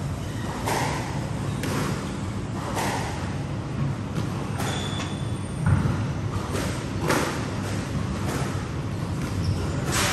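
Squash ball being hit with a racket and smacking off the court walls, sharp cracks about once a second, over a steady low hum.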